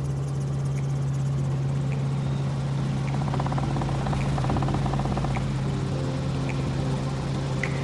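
Helicopter in flight, heard from inside the cabin: a steady low drone from the engine and rotor.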